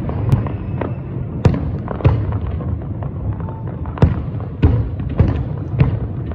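Aerial fireworks display going off: about ten sharp bangs at irregular intervals over a steady low rumble.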